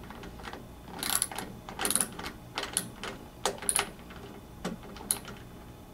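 Socket wrench ratchet clicking in short irregular runs as a lawn mower wheel bolt is tightened.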